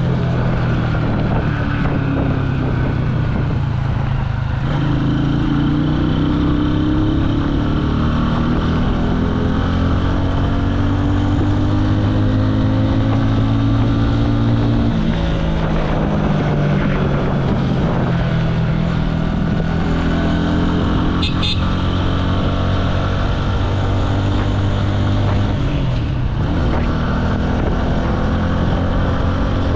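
Jialing 150 cc motorcycle engine running under way, its pitch climbing slowly and dropping back three times as the rider shifts gears, with wind noise on the microphone.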